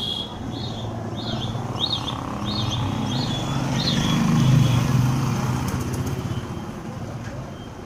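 A motor vehicle passing on the street, its engine swelling to a peak about halfway through and then fading. A bird chirps over it, repeating about every half second through the first few seconds.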